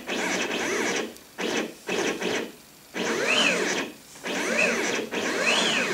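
Stepper motor driving a carriage along a V-slot rail through a dual GT3 belt drive in a fast test run. It makes about six quick moves with short pauses between them, each a whine that rises in pitch and falls again as the carriage speeds up and slows down.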